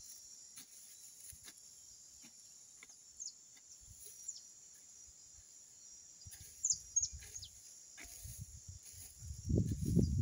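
Rural outdoor ambience: a steady high-pitched insect drone with short falling bird chirps over it, a few scattered soft knocks, and a louder rustling, scraping noise near the end.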